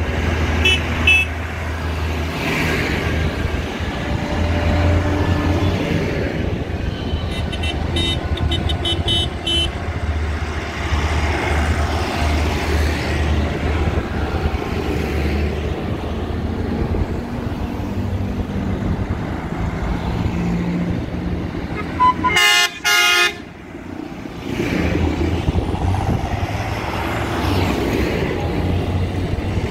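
A procession of farm tractors driving past one after another, their diesel engines running with a low steady drone. Horns toot several times, with two short loud blasts about three quarters of the way through.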